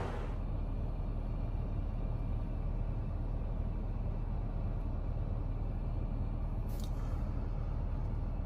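Infiniti G37 sedan's V6 idling, heard from inside the cabin as a steady low hum, with one short click about seven seconds in.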